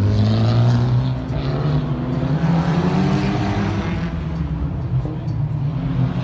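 Mitsubishi Lancer Evolution X's turbocharged four-cylinder engine through a 3-inch stainless steel catback exhaust, driven hard around a track. The engine note climbs, drops sharply about a second in at a gear change, then climbs again.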